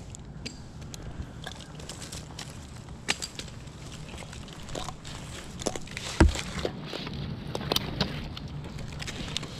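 Tree climber's rope and metal climbing hardware clicking and knocking against the trunk as he handles his line, with one heavier thump about six seconds in. A steady low hum runs underneath.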